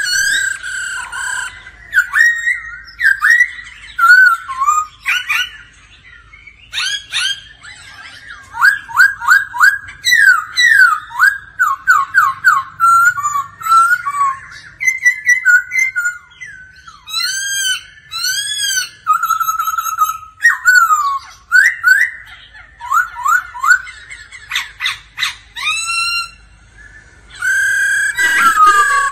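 Black-throated laughingthrush singing: a loud, varied run of clear whistled notes, with quick rising and falling slurs and rapid repeated phrases, broken by short pauses.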